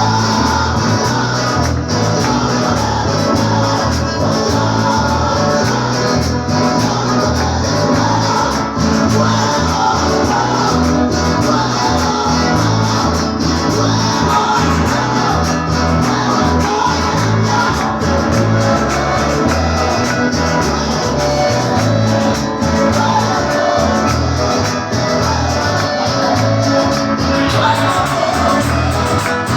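Praise and worship music played by a band, with guitar, a steady repeating bass line and singing.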